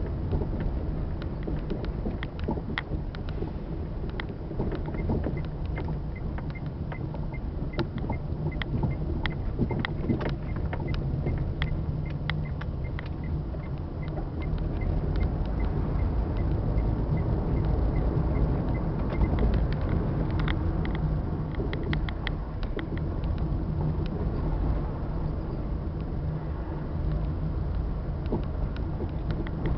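Engine and road noise from inside a moving city bus: a steady low rumble with frequent rattling clicks from the cabin, a little louder midway through.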